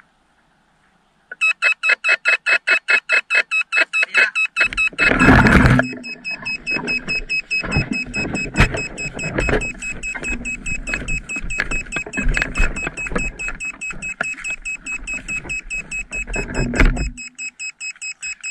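Music with a fast, even beat, starting about a second in after a moment of silence. A heavier low part comes in around the fifth second and drops out near the end.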